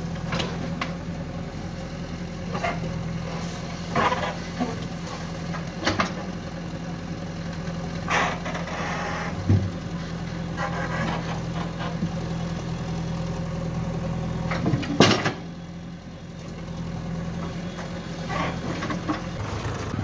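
Diesel engine of a JCB 3DX backhoe loader running steadily while it digs, with the hydraulics working and intermittent clanks and knocks from the bucket and the soil it drops. The loudest knock comes about three-quarters of the way through, after which the engine sound falls away.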